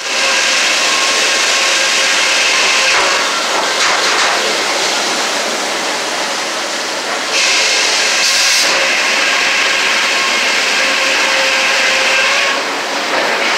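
Sawmill headsaw and log carriage running, heard from inside the sawyer's cab: a loud, steady hiss with a faint hum under it. A brighter, louder hiss sets in about seven seconds in and eases near the end, as the saw cuts through the log.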